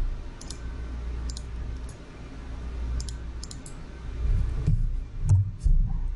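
Computer mouse clicking: about a dozen light, sharp clicks spread through, over a low steady rumble. A few dull low thumps come near the end.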